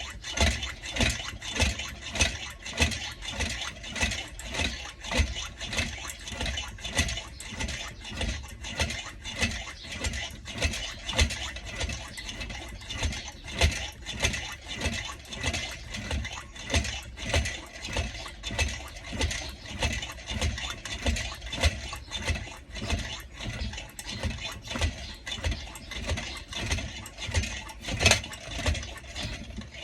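Anchor 500 CP kerosene pressure lantern's fuel tank being hand-pumped, building pressure: a steady rhythm of about one and a half strokes a second, each a low thump with a hiss of air.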